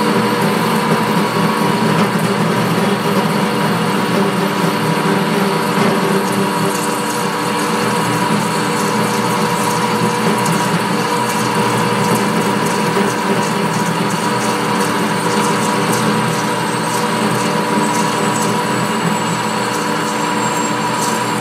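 Metal lathe running steadily with a whining gear train while a parting tool cuts off a machined bushing, scattered faint high ticks from the cut in the second half.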